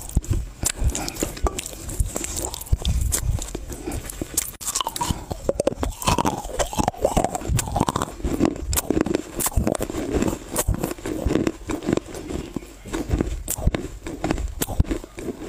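Close-miked chewing of baked loess clay: gritty crunches and clicks, several a second, with wet mouth sounds.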